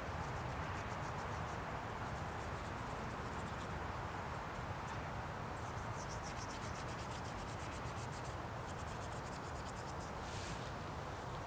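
Paintbrush scrubbing thick paint on a painted board, with a run of quick scratchy strokes in the second half and one louder stroke near the end, over a steady background hiss.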